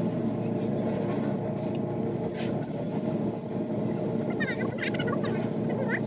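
A steady low mechanical hum, with a cluster of short high chirps near the end.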